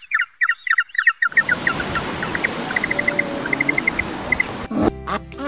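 Small birds chirping in quick repeated calls. About a second in, a different recording takes over: short high chirps in a row over a steady outdoor hiss. Near the end, a new clip of pitched calls begins.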